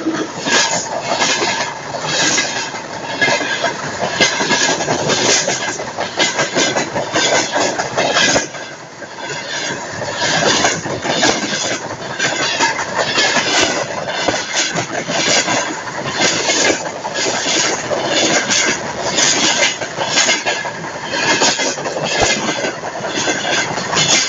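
Freight train wagons rolling directly over a microphone lying between the rails: a loud, dense running noise of steel wheels on rail with a steady series of repeated clacks, briefly quieter about eight seconds in.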